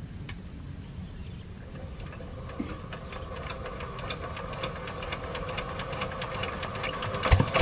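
Single-cylinder diesel engine of a hand tractor being hand-cranked: a regular ticking that speeds up and grows louder as the crank spins faster. Near the end the engine fires and starts running with a much louder, regular knock.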